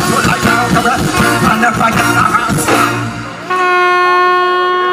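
Live soca band music, dense and loud, fading down about three seconds in. About half a second later a single steady, high pitched tone starts abruptly and holds unchanged.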